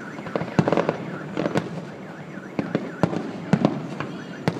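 Aerial fireworks shells bursting: an irregular run of bangs and cracks, sometimes two close together, the loudest about three and four and a half seconds in. A repeating warbling tone sounds faintly underneath.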